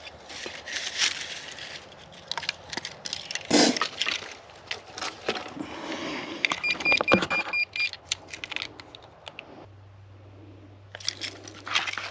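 Crunching, rustling and clinking in forest leaf litter and soil while metal detecting. A little past halfway comes a short run of high, pulsed electronic beeps. Near the end it quiets to a steady low hum before the crackling resumes.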